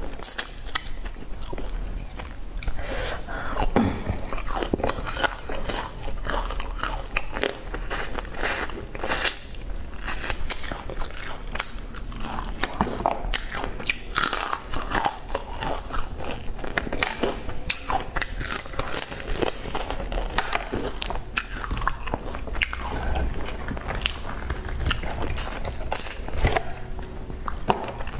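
Close-miked crunching bites and chewing of crispy battered fried chicken, with dense, irregular crackles of the coating breaking throughout.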